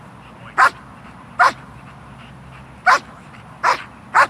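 A large dog barking, five sharp single barks at uneven intervals.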